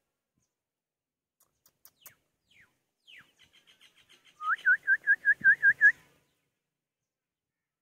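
A bird singing: a few faint, quick falling notes, then a little past halfway a loud, fast run of about seven clear repeated whistled notes, roughly five a second.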